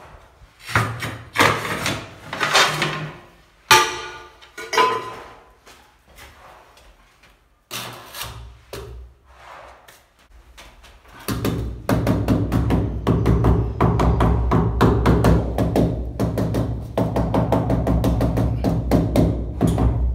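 Irregular knocks and scrapes of ceramic wall tiles being handled and set into tile adhesive. From about eleven seconds in, background music with a fast steady beat and bass takes over.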